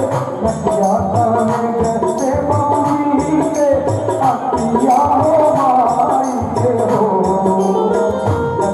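Bhajan music: a hand drum in the tabla style beats a steady rhythm under a wavering melody, with high jingling percussion keeping time.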